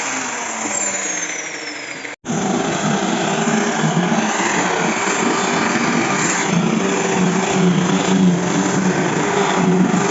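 Electric grinder winding down, its pitch falling over about two seconds. Then, after an abrupt cut, a grinder runs steadily with its pitch wavering as it works the wood.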